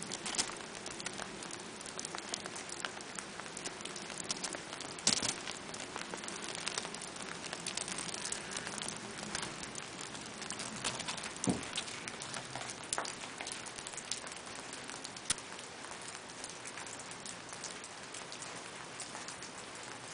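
Sleet and rain pattering steadily on surfaces as a dense run of small ticks, with a few louder knocks, the loudest about five seconds in.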